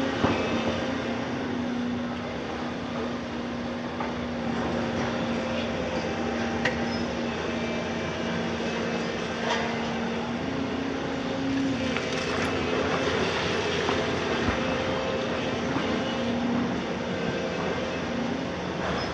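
Volvo 250 crawler excavator's diesel engine running steadily under hydraulic load as the machine slews its upper body round, the engine note rising a little twice. A few sharp metallic clanks come through, about four in all.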